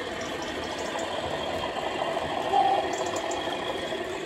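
Model train of Mk2 coaches running along the layout's track: a steady running noise, with a brief louder tone about two and a half seconds in.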